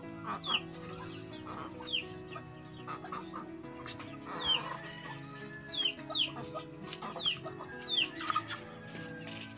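Chicks peeping: short high calls that fall in pitch, repeated irregularly about once or twice a second, over quiet background music with steady held notes.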